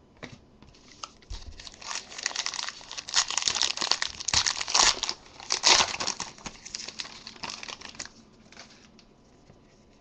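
A foil trading-card pack wrapper being torn open and crinkled by hand: a run of dense crackling and ripping that builds up about a second in, is loudest in the middle, and dies away near the end.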